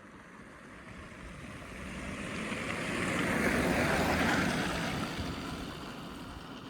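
A vehicle passing by. Its tyre and road noise swells to a peak about four seconds in, then fades away.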